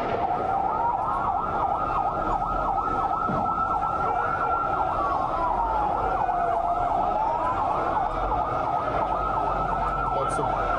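Emergency vehicle sirens sounding steadily. One slow wail falls and rises about every three and a half seconds, together with a rapid yelping warble.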